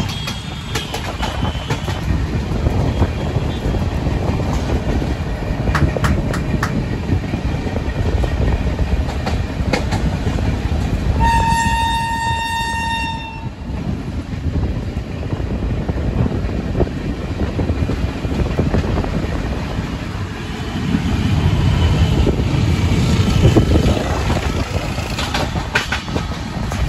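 Passenger train running, heard from an open coach doorway: a steady rumble of the wheels with clatter over rail joints. About halfway through, a train horn sounds once for about two seconds.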